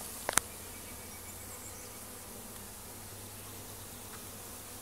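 Steady hum of many honeybees around an opened bee package, with one sharp click just under half a second in.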